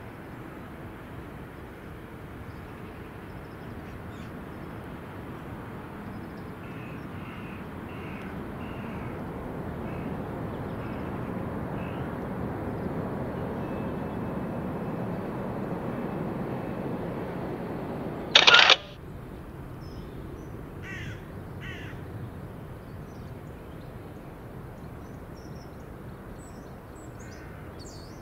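Steady outdoor background noise that swells into a low rumble through the middle and falls back, with faint distant bird calls like crows cawing. About two-thirds in comes a single loud, short snap like a camera shutter.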